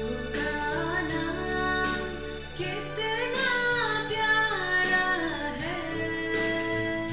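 A young woman singing solo, her voice gliding up and down through a melody, over a strummed guitar accompaniment with sustained chords.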